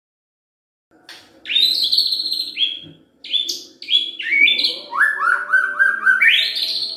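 White-rumped shama (murai batu) singing loud, rich whistled phrases. The song begins about a second in, and near the end comes a run of short notes that climb in steps to a high whistle.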